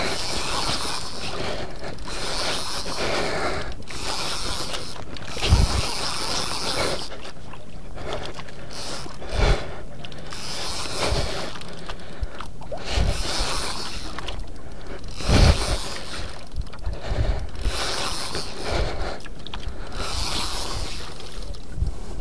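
Water Killer conventional fishing reel being cranked, its gears and line winding in spells of a second or two, with a few low knocks now and then.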